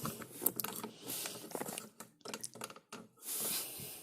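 Plastic Lego Bionicle parts being handled: a run of irregular clicks and rattles, with a brief rustle about three seconds in.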